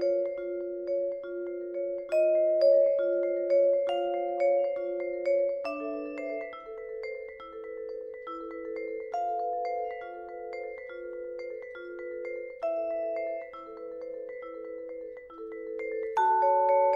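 Solo vibraphone played with mallets: a steady repeating figure of lower notes under a sparser higher melody, the bars ringing on between strokes. It gets louder about a second before the end.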